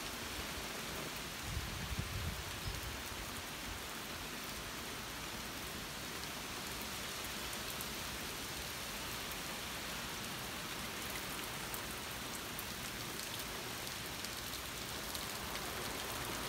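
Steady rain falling, an even hiss, with a brief low rumble about two seconds in.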